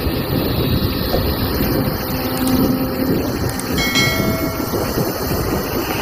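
Kobelco SK250 hydraulic crawler excavator working its bucket through a pile of soil: a steady, heavy diesel engine rumble under load, with a brief whine about four seconds in.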